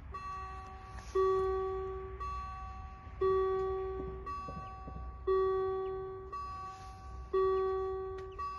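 Electronic warning bell of a BUES2000 level crossing ringing about once a second, alternating a higher and a lower-pitched stroke, each ringing on and fading. It signals that the crossing has been activated for an approaching train and the barriers are about to come down.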